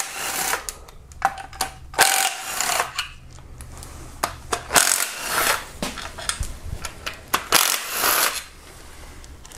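A 12 mm socket wrench working engine bolts loose: metallic clinks and several short rattling bursts, about every two seconds, as the bolts are unscrewed and taken out.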